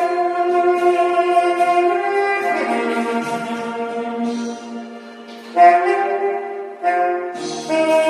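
Saxophone playing a slow melody of long held notes. It drops quieter for a moment past the middle, then comes back in loudly about five and a half seconds in, with two more note entries near the end.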